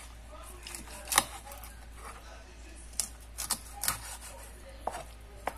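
Chef's knife cutting raw chicken on a plastic cutting board: a handful of sharp knocks as the blade meets the board, one about a second in and a cluster of quicker ones in the second half.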